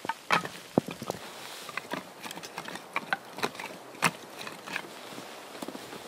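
Irregular sharp wooden knocks and crunches of split firewood being worked and handled, with the loudest knocks about a third of a second in, near one second in and about four seconds in.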